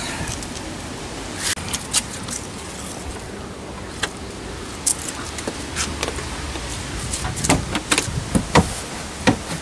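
Irregular clicks, knocks and rattles of things being handled around a car, coming more often near the end, over a steady background hiss.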